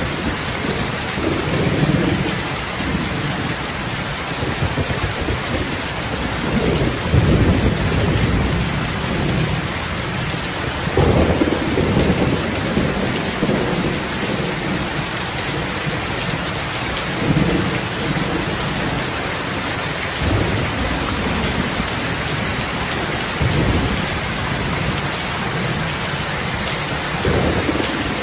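Heavy rain falling steadily, with low rumbles of thunder swelling up every few seconds.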